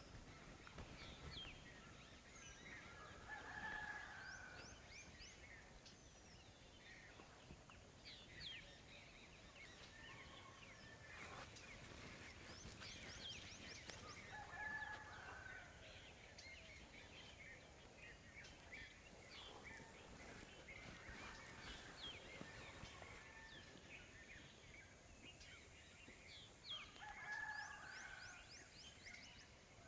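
Faint rooster crowing, three times about eleven seconds apart, with small birds chirping throughout.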